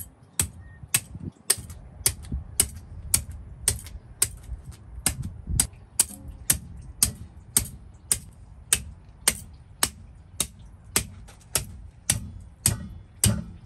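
A meat cleaver chopping down the back of an alligator gar, its blade cracking through the fish's hard, armour-like scales onto a wooden cutting board. The sharp chops come steadily, about two a second.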